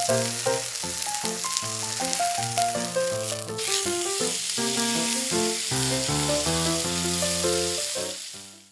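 Sirloin steak sizzling in hot oil in a frying pan, the hiss strongest for the first few seconds and then softer as it is turned with chopsticks. Background music with a melody of held notes plays throughout, and both fade out near the end.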